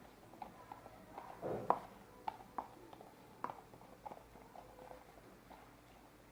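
Homemade glue-and-soap slime being stirred and worked, giving soft, irregular sticky clicks and squelches, with a louder squelch about one and a half seconds in.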